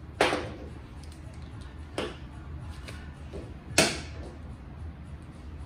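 Three sharp metal clacks about two seconds apart, the last the loudest, as tools and small parts are picked up and set down on a steel lift table, over a steady low hum.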